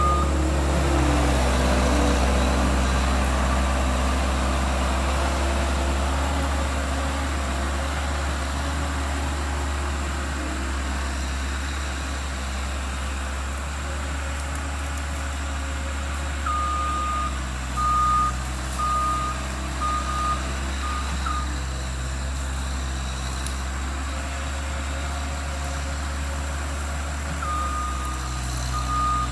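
Skid steer engine running steadily, with its reverse alarm beeping in evenly spaced pulses as it backs up: briefly at the start, again for about five seconds a little past halfway, and once more near the end.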